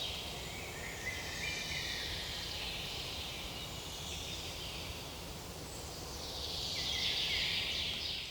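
Forest ambience of birds chirping: a dense chorus of high-pitched calls that swells about seven seconds in.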